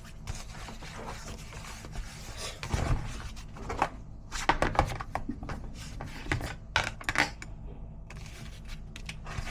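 Kitchen handling sounds: scattered clicks and light clatters of food containers and utensils as a packed lunch is put together, over a steady low hum.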